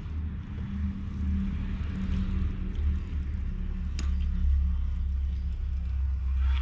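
Wind buffeting the microphone as a steady low rumble, with one sharp click about four seconds in.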